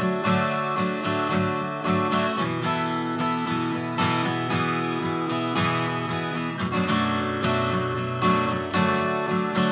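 Acoustic guitar strummed in a steady rhythm, the chords changing about two and a half seconds in and again near seven seconds.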